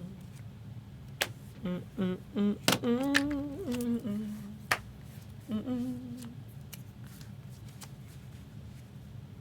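A person humming a few short, wavering notes in bursts, with several sharp clicks in between. The humming stops a little after halfway.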